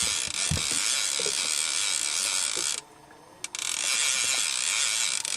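Fishing reel being cranked to bring in a hooked lake trout: a steady ratcheting whir that stops for under a second near the middle, then starts again.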